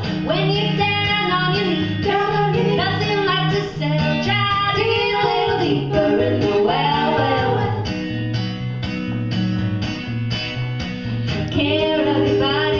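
Three women singing in harmony over a strummed acoustic guitar and a low bass line. The voices drop back for a few seconds past the middle, leaving mostly the guitar and bass, then come in again near the end.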